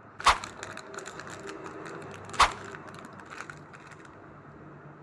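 Small metal keychains being handled and set down: two sharp knocks about two seconds apart, with lighter clicks and rattles of the keyrings and charms between them.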